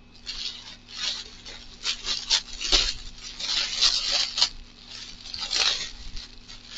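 Plastic packaging crinkling and rustling in irregular bursts as a wrapped item is handled and pulled open by hand.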